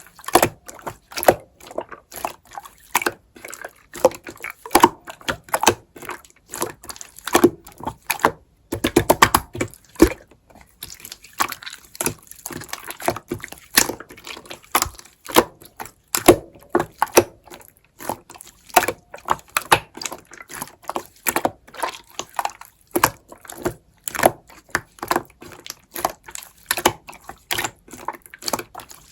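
Slime being squished and pressed by hand, giving irregular sticky clicks and pops. A dense run of crackling comes about nine seconds in.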